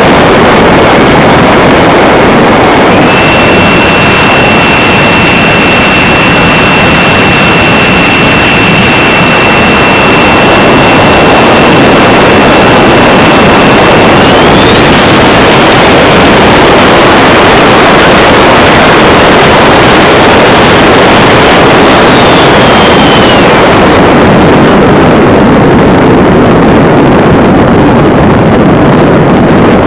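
Mercury 64 electric ducted fan of a model Rafale jet in flight, heard as a loud, steady rush of fan and air with a high whine that steps up about three seconds in, climbs higher around halfway, and drops back a few seconds later as the throttle changes.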